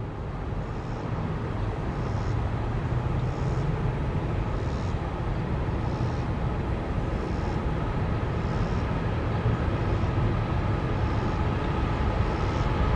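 Steady low mechanical hum with a fainter steady whine above it, slowly growing louder. A faint high chirp repeats about every second and a bit.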